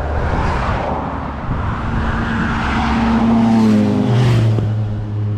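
Road traffic going past close by: a motor vehicle's engine and tyres, its engine note dropping sharply in pitch about four seconds in as it passes.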